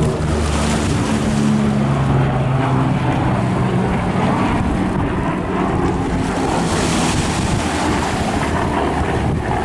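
An engine drones with steady tones, strongest in the first few seconds, under heavy wind buffeting the microphone.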